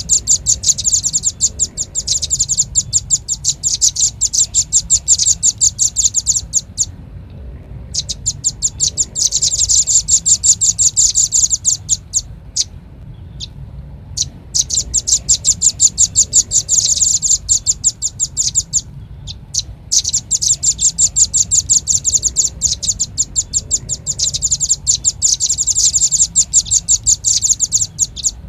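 Velvet-fronted nuthatch (red-billed nuthatch) calling: long runs of rapid, high, sharp chip notes, broken by a few short pauses, as used for a bird-trapping lure track.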